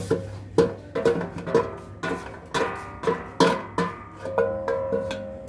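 A metal slotted spoon knocks and scrapes against a stainless steel pan, knocking out ground nut mixture. There are a dozen or so irregular clanks, each ringing briefly, and a ringing tone hangs on for about a second near the end.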